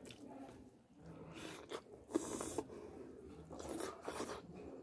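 Close-miked eating sounds: a whole fried fish pulled apart by hand and chewed, in several short bursts of mouth noise with quiet gaps between.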